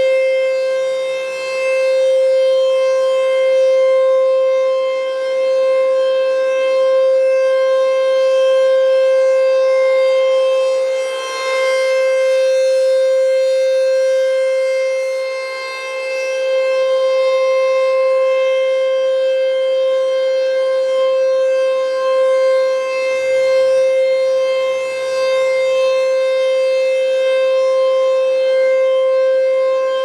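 ASC T-128 rotating mechanical siren sounding its steady single-tone alert during a full three-minute test. The pitch holds level while the loudness swells and dips as the horn turns.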